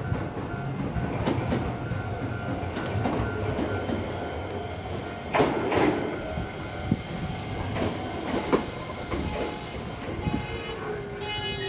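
Shizuoka Railway A3000-series electric train pulling into a station and braking to a stop: steady running rumble with wheels clicking over rail joints and a louder clank about five seconds in. Near the end a low motor whine falls in pitch as the train slows.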